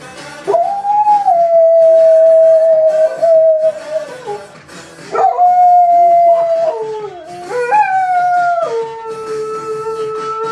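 A Labrador howling along to a rock song playing in the background: three long howls that slide up and then hold steady, the first lasting about three seconds and the last jumping higher before dropping to a lower held note.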